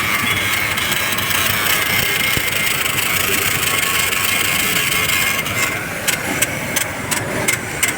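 An engine running steadily under a hissing crackle. From about five and a half seconds in, sharp taps come about three times a second.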